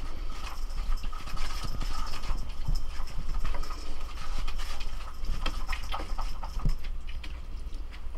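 Tabby cat's paws and claws knocking and scraping on a wooden shelf unit as it climbs and rummages about: a run of irregular light taps and scuffs.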